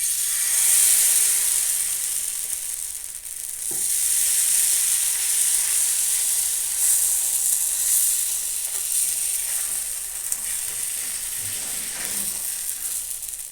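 Vegetable-and-egg batter sizzling loudly on a hot oiled griddle. It starts suddenly as the batter hits the pan, dips briefly a little under four seconds in, then swells again and keeps frying steadily.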